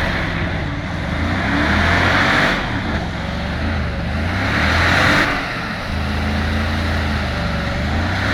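Chevrolet Silverado pickup's engine revving in repeated surges as it drives through soft, grassy ground, with a rushing hiss that swells with each surge.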